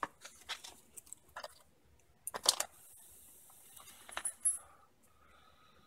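Light metallic clicks and clinks of brake pads and a steel pad clip being handled and fitted into a Brembo brake caliper, with the loudest cluster of clinks about halfway through and a few more shortly after.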